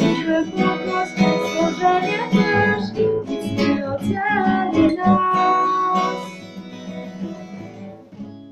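Steel-string acoustic guitar strummed in chords while a young woman sings. After a held note about five seconds in, the singing stops and the last chord rings out and fades.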